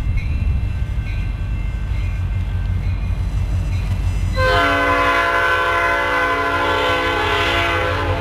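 Diesel freight locomotive's air horn sounding one long blast of several tones together, starting about halfway through and held for about four seconds, over a steady low rumble from the approaching train.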